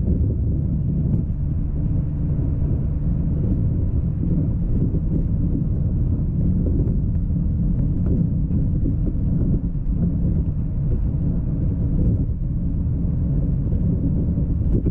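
Steady low rumble of a coach bus's engine and tyres at road speed, heard from inside the cabin.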